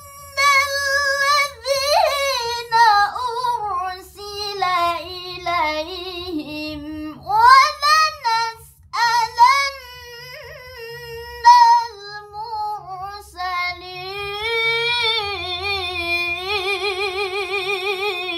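A girl's voice reciting the Quran in melodic tilawah style: long drawn-out phrases with ornamented pitch turns, ending on a trembling, wavering held note.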